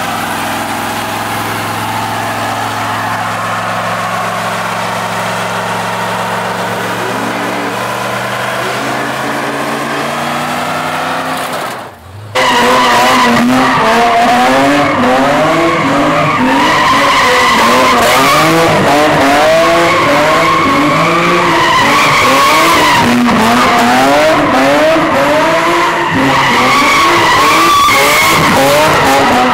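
A pickup truck's engine held at high revs in a burnout, its rear tyres spinning in smoke. About twelve seconds in, a cut to a car drifting in donuts: the engine revs rise and fall about twice a second over loud tyre squeal.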